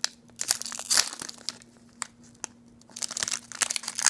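Foil wrapper of a Pokémon booster pack crinkling and crackling as it is handled, in irregular bursts with a quieter stretch in the middle.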